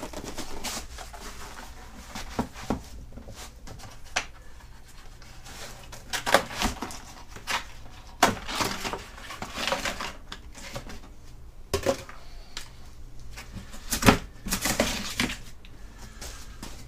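Cardboard packaging being pulled open and folded back off a new aluminium car A/C condenser: irregular crackles, rustles and knocks, the loudest about fourteen seconds in.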